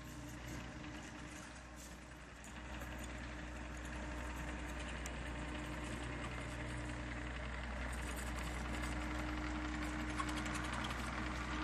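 Caterpillar 308 mini excavator's diesel engine running steadily under work, a low hum with a steady whine above it, growing louder about two and a half seconds in.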